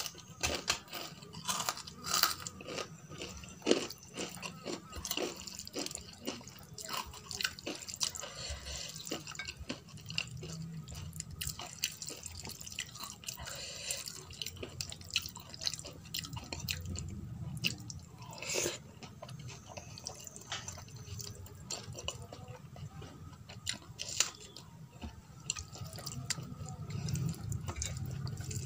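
Close-miked eating sounds: a bare hand squishing and mixing rice with dal and vegetable curry on a steel plate, with chewing and many small sharp clicks throughout.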